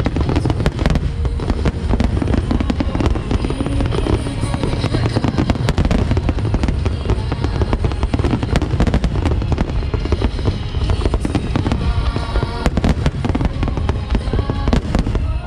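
A large aerial fireworks barrage: many shells bursting in rapid, overlapping succession, a continuous crackle of reports over a deep rumble that never lets up.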